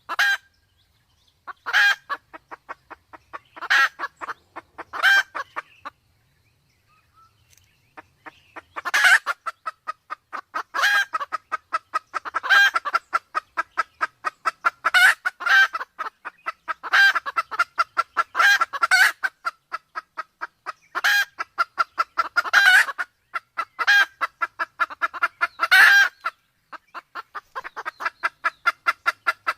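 Red junglefowl calling, the hen's breeding-condition calls of a hunting lure recording: short harsh calls every second or two. A fast, steady run of clucks starts after a brief pause about eight seconds in and carries on between the louder calls.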